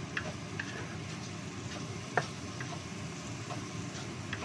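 Wooden spatula stirring aromatics in a nonstick wok, with light ticks and taps of the spatula on the pan over a steady frying sizzle; one sharper knock about two seconds in.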